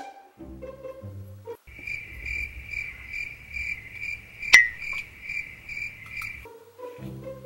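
Cricket chirping, an even chirp about two and a half times a second that starts about two seconds in and cuts off abruptly a second before the end, with one sharp click in the middle. Short bits of light music come before and after the chirping.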